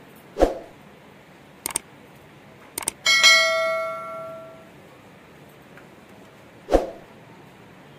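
Subscribe-button animation sound effect: a soft pop, two sharp mouse clicks, then a bell ding that rings and fades over about a second and a half, with another pop near the end.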